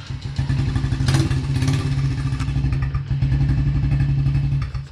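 Yamaha TT-R90's small air-cooled single-cylinder four-stroke engine running, just started on its repaired electric start, revved briefly about a second in. It cuts off near the end.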